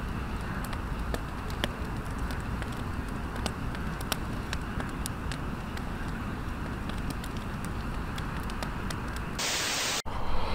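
Wood campfire burning, crackling with irregular sharp pops. Near the end a brief steady hiss takes over and cuts off.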